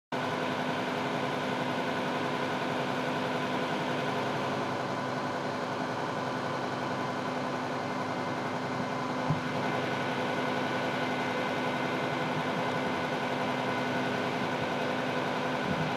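Emergency vehicle engines idling steadily: a constant drone with a steady hum. A single short knock comes about nine seconds in.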